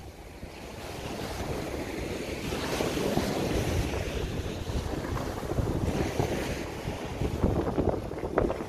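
Wind buffeting the microphone, gusting irregularly, over the wash of small waves breaking on a sandy shore.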